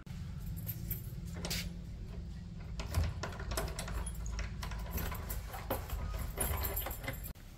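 Keys jangling and a lock rattling as a wooden door is being unlocked, a string of irregular clicks and metallic knocks that stops abruptly near the end.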